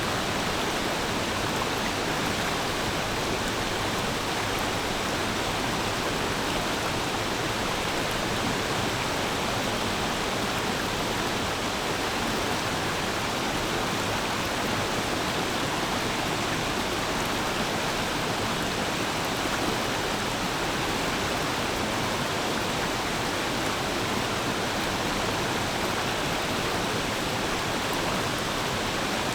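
A forest stream flowing over rocks: a steady, unbroken rush and babble of water.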